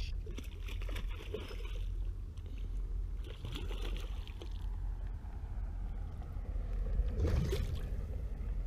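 A hooked rainbow trout thrashing and splashing at the water's surface in bursts, the loudest splash about seven seconds in, over a steady low rumble.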